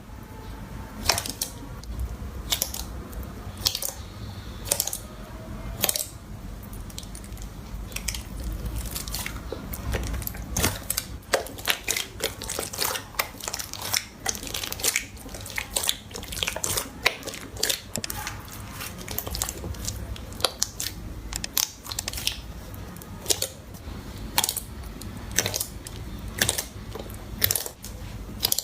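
Slime being squeezed, pressed and poked, giving a dense run of irregular sharp clicks, pops and crackles.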